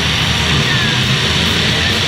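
Loud music blended with the steady running of demolition derby cars' engines.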